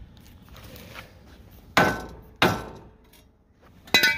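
Steel knocking against steel three times, the last with a brief metallic ring: a new piece of steel being set into the cut-out in a rusted trailer frame for a test fit.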